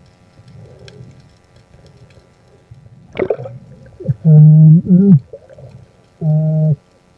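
Muffled human hums underwater, likely a diver calling out into a snorkel. After a short sliding sound about three seconds in, there is a loud, flat-pitched hum about a second long that wavers at its end, and then a shorter one near the end.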